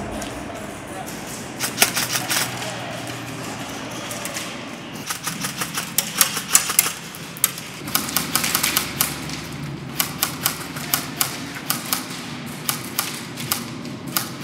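Airsoft electric guns firing several bursts of rapid clicks, a fast mechanical rattle of BBs being shot.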